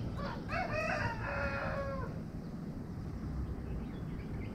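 A rooster crowing once, a drawn-out call lasting about two seconds near the start.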